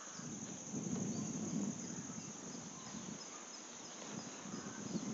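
Insects, likely crickets, keep up a steady high-pitched drone. Under it a low rumble swells and fades.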